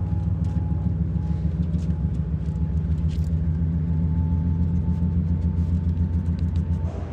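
Car ferry's engines droning steadily, a low rumble with a faint steady whine above it.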